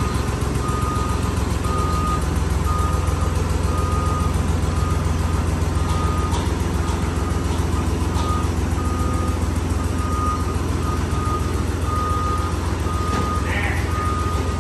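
A vehicle's reversing alarm beeping about once a second, each beep about half a second long, over the steady running of its engine.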